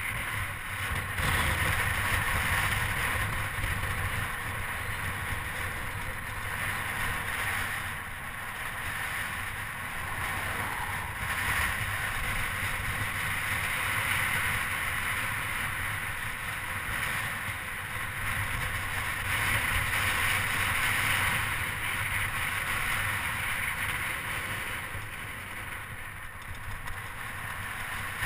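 Wind rushing over the microphone of a camera on a moving bicycle, with a low rumble of tyres rolling on cracked asphalt; the rush swells and eases every few seconds.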